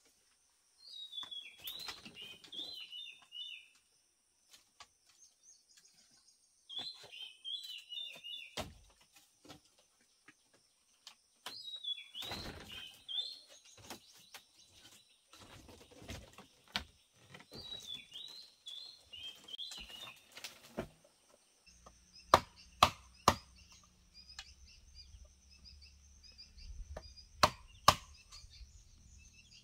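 Small birds singing repeated short chirping phrases over a steady high insect-like whine. About 22 seconds in, a large knife strikes bamboo sharply three times in quick succession, then twice more a few seconds later.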